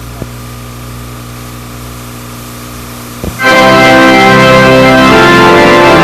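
Möller pipe organ: a soft held sound, then about three and a half seconds in a loud full chord of many pipes comes in just after a click and is held.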